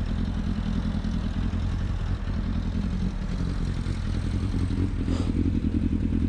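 Yamaha FZS600 Fazer's inline-four engine idling steadily, with a brief knock about five seconds in.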